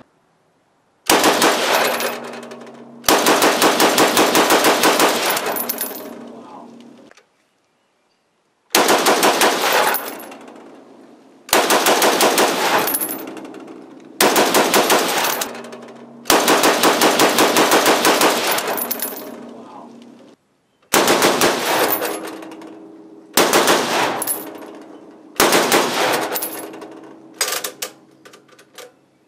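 Browning 1919A4 machine gun firing surplus 8mm Mauser ammunition in rapid bursts, the shots driven by a hand-cranked crankfire device. There are about ten bursts, from under a second to about three seconds long, each trailing off in echo.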